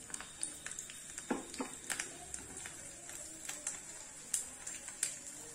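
Hot oil sizzling in a small tadka pan, with irregular sharp crackles and pops as garlic cloves, cumin and mustard seeds fry in it.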